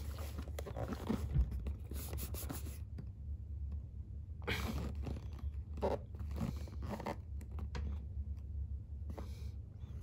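Biscuit packet being handled and turned over, its wrapper crinkling and rustling in irregular short bursts, over a steady low hum.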